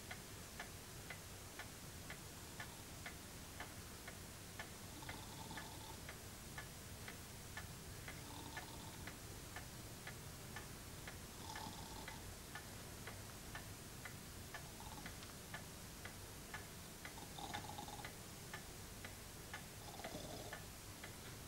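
Clock ticking steadily, about two ticks a second, faint, with a few faint short chirps now and then.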